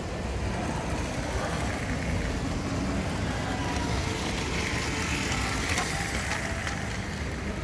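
Steady background noise of a busy indoor exhibition hall, with indistinct voices in the mix.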